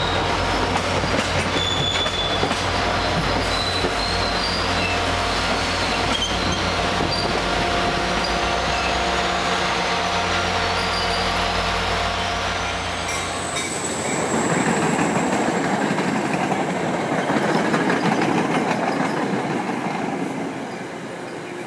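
MBTA commuter train on curved track: a steady low diesel rumble under high, steady wheel squeal. About two-thirds of the way through it gives way abruptly to the rushing, rolling noise of coaches passing, which fades near the end.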